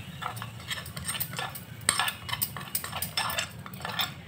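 A steel spoon scraping and clinking against a metal tadka ladle, tapping the fried tempering out into a pot of dal: a quick, irregular run of metal clicks and scrapes, about three a second.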